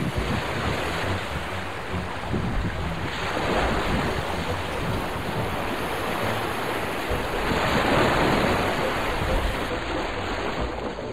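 Small waves washing onto a rocky shore, swelling up twice, with wind buffeting the microphone.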